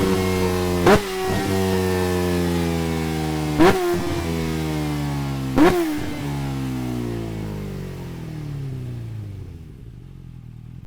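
Kawasaki Ninja H2R's supercharged inline-four engine decelerating off the throttle, its note falling steadily. Three short loud pops break the note at intervals, and the engine fades as it slows.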